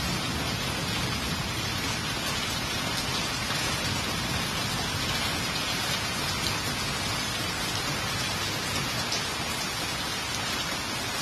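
Heavy rain pouring down steadily, an even hiss without a break.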